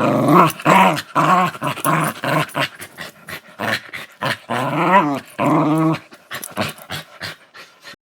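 Small dog growling in a rapid series of short, pitched growls, a few of them rising and falling, thinning out near the end.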